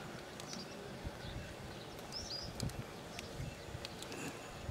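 Hands squishing thick tandoori marinade paste around a steel bowl, soft and low, with a couple of short bird chirps about two seconds in.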